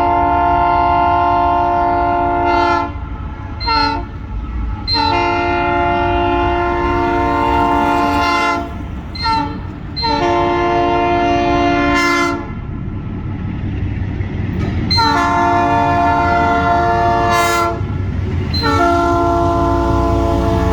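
Locomotive air horn sounding a chord of several notes in a series of blasts: a long blast ending about three seconds in, a short toot, a long blast, another short toot, a long blast, then after a pause of about two seconds two more long blasts. A low rumble of the passing train runs underneath.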